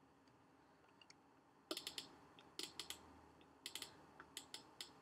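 Computer keyboard keys clicking in four short groups of a few quick presses, spread over the last three seconds or so, faint against the quiet room.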